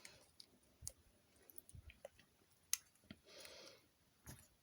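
Faint scattered clicks of plastic LEGO bricks being handled, pulled apart and pressed together, about a dozen spread irregularly, with a short soft hiss about three and a half seconds in.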